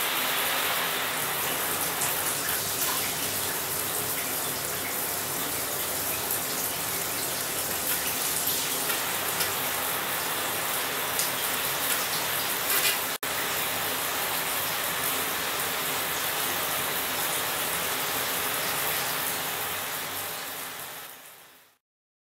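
Water spraying steadily from a six-mode chrome shower head, a dense hiss. It breaks off for an instant about halfway through, then fades out near the end.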